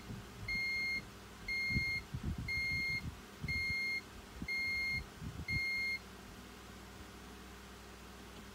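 Pyronix alarm system giving evenly spaced half-second beeps, about one a second, that stop about six seconds in: the exit-delay countdown after the panel has been set with the user code.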